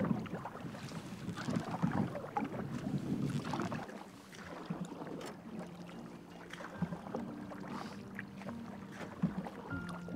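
Canoe paddling on choppy water: paddle strokes and water splashing and lapping against the hull, with wind on the microphone. It grows quieter about four seconds in.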